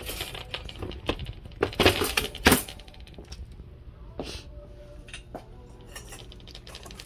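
A run of light clinks and knocks, busiest and loudest between about one and a half and two and a half seconds in, then a few scattered ticks.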